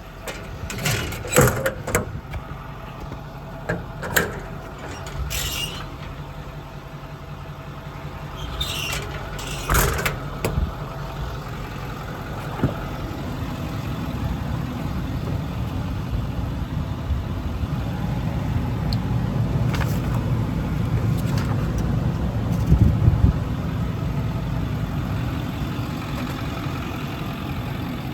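Ford 6.4 Power Stroke diesel idling steadily, growing louder from about halfway through. Several sharp clunks and knocks stand out over it in the first ten seconds.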